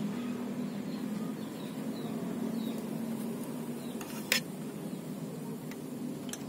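A sharp click about two-thirds of the way through, then two fainter clicks near the end, from fingers handling the metal folding hook of a Ninebot ES scooter. A steady low hum and a few faint high chirps sit under them.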